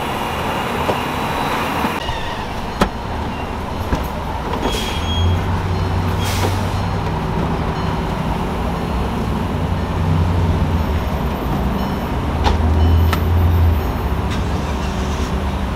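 Car running while its power convertible soft top folds back: a steady mechanical hum with a low rumble that swells and eases, and a few sharp clicks.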